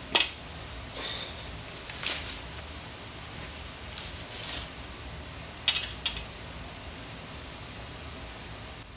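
Handling noise as disposable gloves are pulled off and a small watch screwdriver is handled: two sharp snaps or clicks, one just after the start and one about six seconds in, with short rustles between them and a few faint ticks near the end, over a steady hiss.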